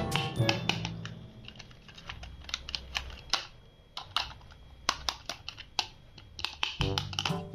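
Irregular sharp clicks and taps, like typing, over a faint low hum. Music fades out about a second in and comes back near the end.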